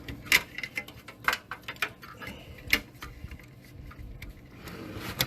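Hard drive being fitted into a desktop PC case: irregular sharp clicks and knocks of the drive and case parts being handled and pushed into place.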